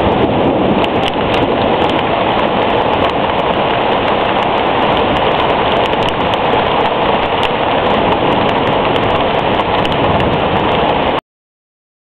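Heavy rain in a thunderstorm: a loud, steady rush of downpour with scattered sharp ticks of drops striking close by. It cuts off suddenly near the end.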